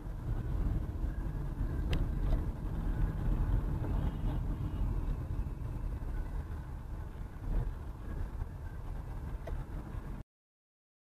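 Steady low rumble of a moving car's engine and tyres, as picked up by a dashcam inside the car, with a couple of faint clicks. It cuts off suddenly near the end.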